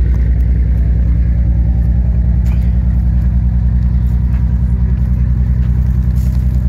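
Engine of a delivery truck idling steadily, a low, even throb.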